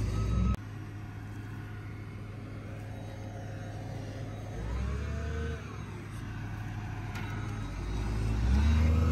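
A heavy machine's engine running, revving up and falling back around the middle and building again near the end. A louder sound cuts off suddenly about half a second in.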